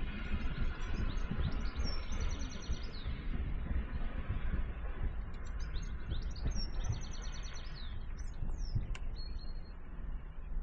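A songbird singing two phrases of fast repeated high notes, about a second and a half in and again around five seconds in, with a few short calls after, over a steady low rumble.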